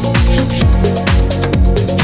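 Electronic dance music with a steady kick drum about twice a second, hi-hats and synth chords.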